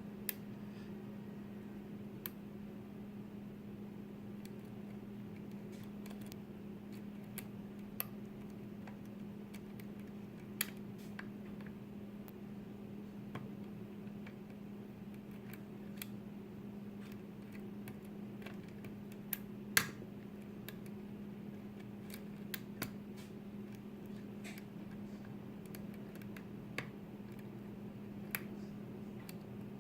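A lock pick working the pins of a pin-tumbler lock under very light tension: sparse, irregular small metallic clicks, one every second or two, with one louder click about two-thirds of the way through. A steady low hum sits underneath.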